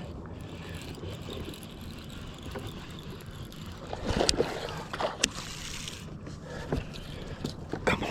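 Water sloshing against a small boat, with a few short sharp splashes or knocks about four and five seconds in.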